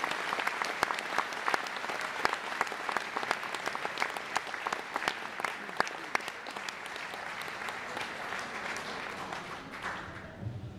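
Concert audience applauding, dense clapping that thins out and dies away over the last couple of seconds.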